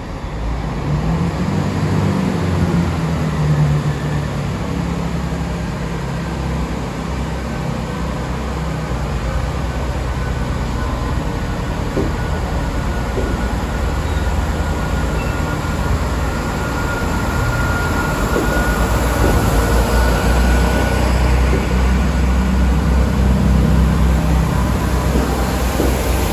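A GWR Class 166 Turbo diesel multiple unit pulls out under power, its diesel engines running and growing louder as the unit draws level and its coaches pass close by. A thin high whine sounds around the middle.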